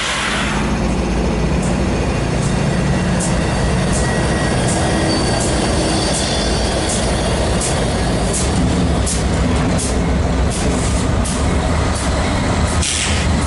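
Train rolling past: a steady rumble with a sharp click roughly every second, the clicks coming closer together later on.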